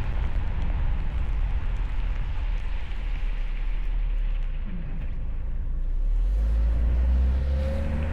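Car driving through a snowstorm: a steady low rumble of road and wind noise. About six seconds in, a steadier hum comes up with a faint pitch that rises slightly.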